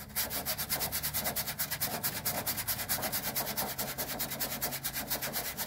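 Toothbrush bristles scrubbing quickly back and forth across the fine mesh screen of a Fan-Tastic RV roof vent fan, an even scratching rhythm of about eight strokes a second.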